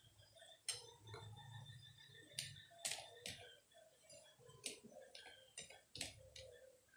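Fingers mixing a dry peanut-and-spice powder in a stainless steel plate: faint rubbing with irregular sharp clicks of fingertips and nails against the steel.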